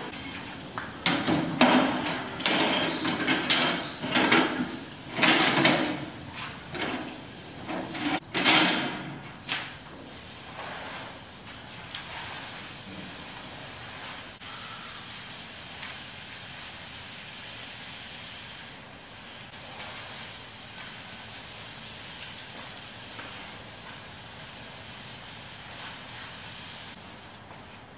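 Mop head being pushed and dragged across a hard floor: irregular swishing scrapes for the first ten seconds or so, then only a quiet, steady background.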